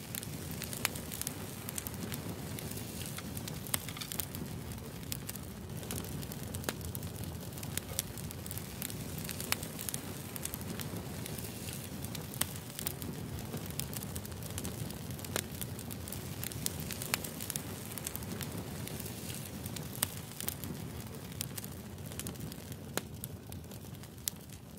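Fire burning in a small camp stove: a steady low rush with sharp, irregular crackles and pops.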